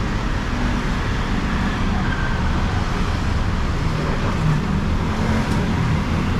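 Steady, dense street noise with a low rumble, like road traffic.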